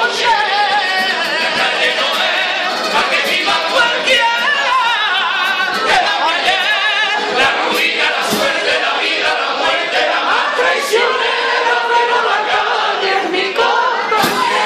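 A carnival comparsa singing in chorus: a group of voices singing a song together.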